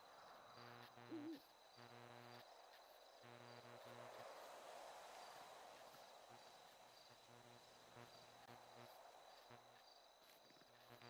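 Near silence: a faint buzz that switches on and off, a steady thin high hum and a soft hiss, with one brief chirp about a second in. No siren is audible.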